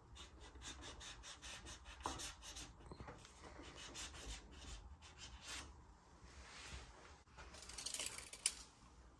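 Vielo integrated carbon bar-stem being worked by hand up and off the carbon fork steerer tube: a quick series of short rubbing scrapes, several a second, with a sharp click near the end.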